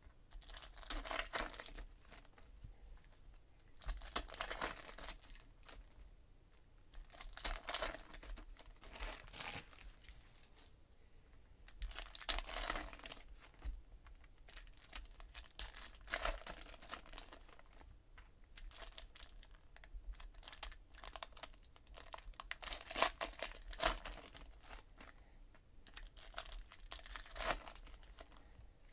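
Shiny plastic wrappers of 2017 Donruss Optic baseball card packs being torn open and crinkled in repeated bursts a few seconds apart, with cards handled in between.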